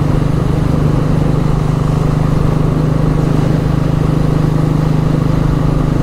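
Royal Enfield Bullet motorcycle engine running steadily at highway cruising speed, a constant low engine note over a rush of road and wind noise.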